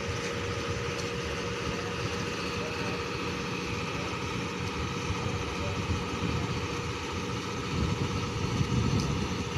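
Tug boat's diesel engine running steadily, a low drone with a constant hum, swelling briefly near the end.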